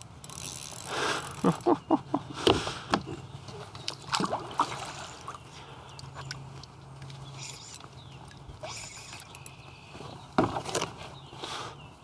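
Clicks and knocks of a spinning reel and fishing tackle being worked from a kayak while a hooked fish is fought. They come in short clusters about a second in, around four seconds in, and again near the end.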